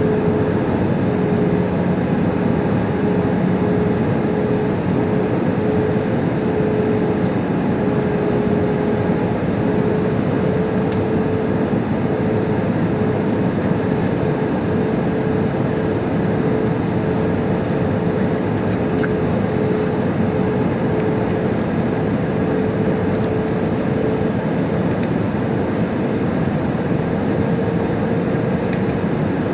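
Airbus A320's cabin noise in flight: the steady rush of airflow and the CFM56 turbofan engines, with a constant hum running through it.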